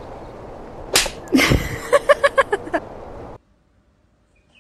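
A sharp smack about a second in, followed by a quick run of about seven short high-pitched voice-like pulses, five or six a second, like a burst of laughter; the sound cuts off suddenly after about three and a half seconds.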